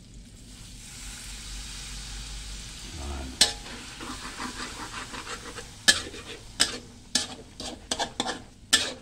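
A little water poured into a hot aluminium wok of sautéed pork, aromatics and fermented rice-fish sizzles with a steady hiss that swells over the first few seconds. A metal spatula then stirs and scrapes the mixture, knocking sharply against the wok several times, more often toward the end.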